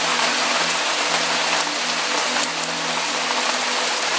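Steady rain falling, a dense even hiss of many drops, with a faint low steady hum beneath it.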